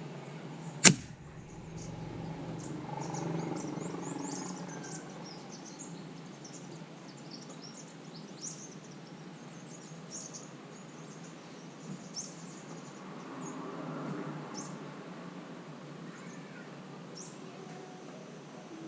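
A single PCP air rifle shot, one sharp crack about a second in, then birds chirping against a steady outdoor background.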